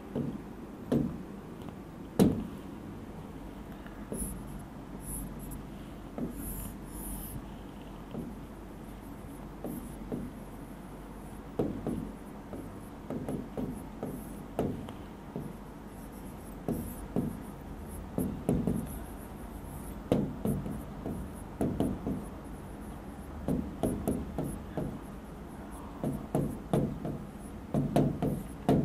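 A stylus tapping and rubbing on a touchscreen whiteboard as someone writes: irregular soft knocks, often several in quick succession, over a low steady hum.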